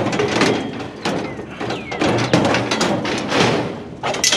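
Sheet metal clattering and scraping as scrap is handled, a run of irregular knocks with a brief squeal of metal sliding on metal.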